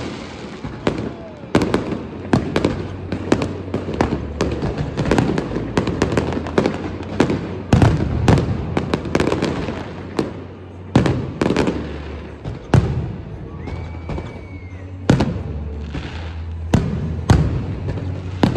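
Fireworks going off: many sharp bangs at irregular intervals, some in quick clusters, over a low rumble, with a brief whistle about three quarters of the way through.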